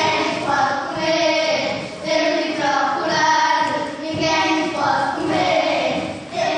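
A group of voices singing together in chorus, in short phrases of held notes.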